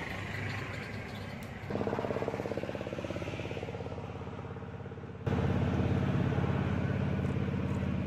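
An engine running steadily with a fast, even pulse. It suddenly gets louder about two seconds in, and again about five seconds in.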